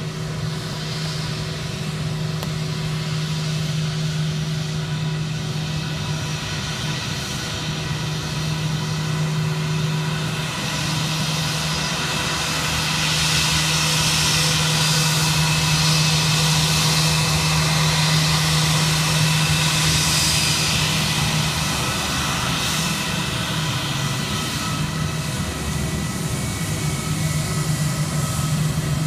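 Airbus A319 jet engines running as the airliner taxis and turns on the runway, a steady whine with a roar underneath. The noise swells from about halfway through, eases a little, then builds again near the end as the aircraft lines up for takeoff.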